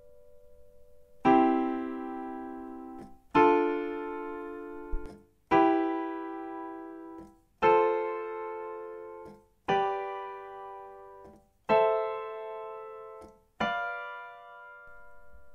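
Piano playing the seven triads of the C major scale in ascending order, one chord every two seconds: C major, D minor, E minor, F major, G major, A minor and B diminished. Each chord is struck once and left to ring and die away.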